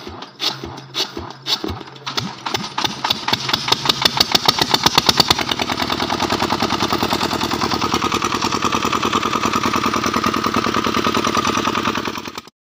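Hand-cranked 7.5 kVA diesel generator engine starting, its exhaust blowing straight out through a large horn fitted in place of the silencer. Irregular cranking knocks give way to exhaust beats that quicken, loudest about five seconds in, then settle into rapid, even running until the sound cuts off sharply near the end.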